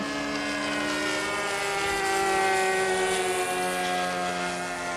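Radio-controlled model airplane droning high overhead, its motor and propeller note holding steady and then slowly falling in pitch, loudest about halfway through.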